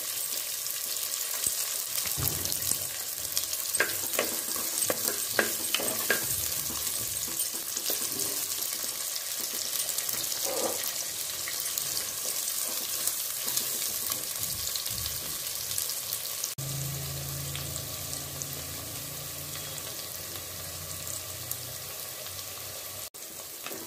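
Sliced shallots sizzling steadily in hot oil in a clay pot as they sauté. A wooden spatula stirring them gives occasional scrapes and knocks against the pot, mostly in the first several seconds.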